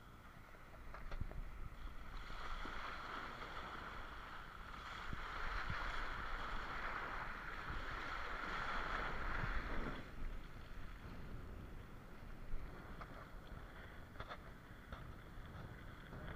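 Rush of wind and churning seawater at an action camera on a parasail rider. It is loudest from about two seconds in to about ten seconds in, while the rider is down in the spray at the sea surface, then falls back to a quieter wind rush with a few faint clicks.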